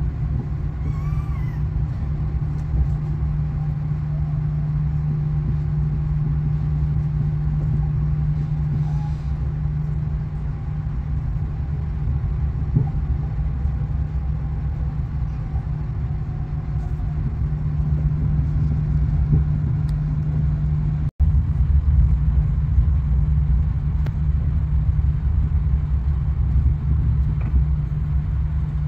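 Steady low rumble and hum of a high-speed train heard from inside the passenger car as it runs along the track, with a brief dropout about two-thirds of the way through, after which it is a little louder.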